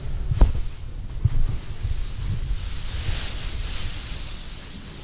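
Loose bedding straw rustling as it is handled, a rushing noise that swells about three seconds in, with dull knocks and a sharp click about half a second in.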